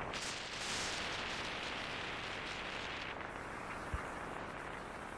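Road and wind noise from a moving car. A louder hiss rises just after the start and fades about three seconds in, and a short low thump comes about four seconds in.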